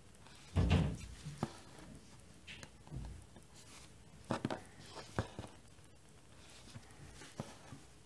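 Quiet handling sounds of hand cross-stitching: a dull thud about half a second in, then scattered light taps and clicks as the needle and thread are worked through the fabric in a plastic hoop.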